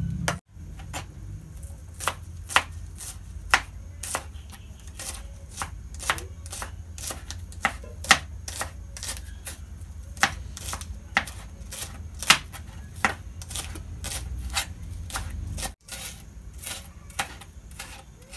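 Kitchen knife chopping spring onion on a plastic cutting board: a steady run of knocks, about two a second, over a low hum.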